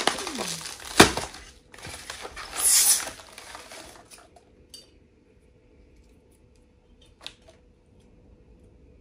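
Packaging rustling and crinkling as a small ceramic vase is unwrapped from its box, with a sharp knock about a second in. After about four seconds it goes much quieter, apart from a light tap near the end.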